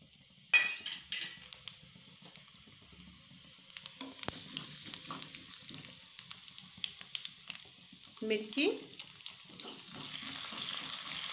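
Fennel and mustard seeds crackling and sizzling in hot oil in a kadhai, with a metal ladle scraping the pan as they are stirred. Near the end, green chillies go into the oil and the sizzle grows louder and steadier.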